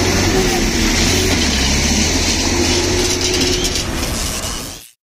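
Road traffic noise: steady vehicle engine rumble and road noise that cuts off abruptly near the end.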